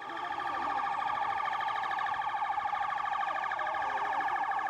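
Police vehicle siren sounding at a steady pitch with a fast warble.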